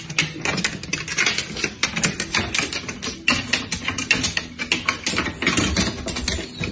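A cat climbing a wall-mounted wooden ladder, its claws and paws clicking and scrabbling on the rungs in a fast, irregular run of taps.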